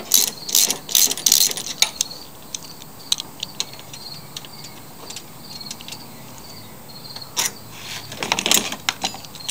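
Hand socket ratchet clicking in quick strokes as a 7/16 bolt is backed out of the mower handlebar, for about the first two seconds. Then only scattered light ticks, and a brief clatter of handling about eight seconds in.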